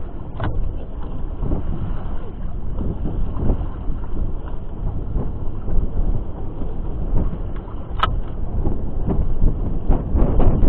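Wind buffeting the microphone on a small boat at sea: a steady low rumble, with two sharp clicks, one about half a second in and one near 8 seconds, and rougher gusts near the end.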